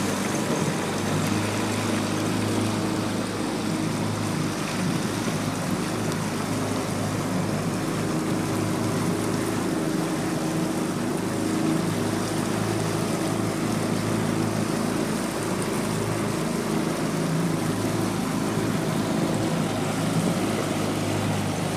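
Boat motor running at a steady speed with an even, unchanging drone, over the rush of water churned up around the hull and the towed floats.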